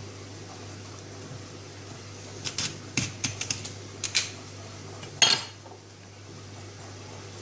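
Kitchen utensils clinking against dishes: a quick run of light taps and clicks about two and a half seconds in, then one louder clink with a short ring a little after five seconds. A steady low hum runs underneath.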